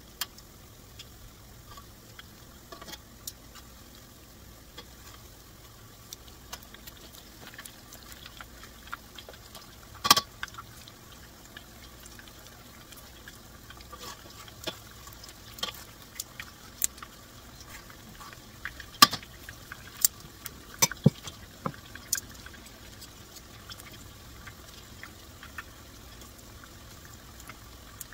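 Pakoras sizzling in hot oil in a frying pan, with metal tongs clicking and scraping against the pan as the fritters are turned; the sharpest clicks come about ten seconds in and in a cluster between about nineteen and twenty-two seconds.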